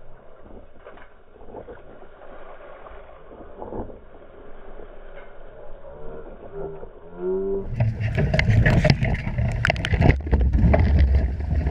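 Wind and water noise on a small sailing catamaran in gusty 30-plus-knot wind. It is muffled and fairly quiet for the first seven seconds or so, with a few brief voice-like calls near the end of that stretch. About eight seconds in it turns to loud wind buffeting the microphone, with crackling spray and water.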